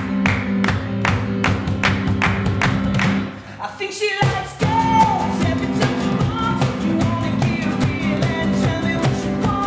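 Acoustic pop-rock band playing: strummed acoustic guitars, keyboard and cajon on a steady beat about twice a second. The band drops out briefly about three and a half seconds in, then a male lead vocal comes back in over the guitars.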